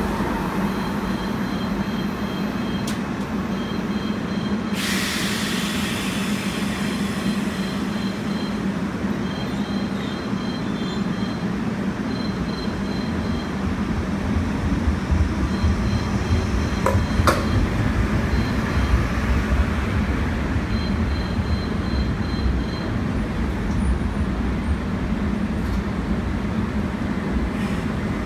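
Seoul Metro Line 1 refurbished resistance-control electric train moving slowly along the platform: steady low rumble of motors and wheels with a hum. A sudden hiss starts about five seconds in and fades over a few seconds.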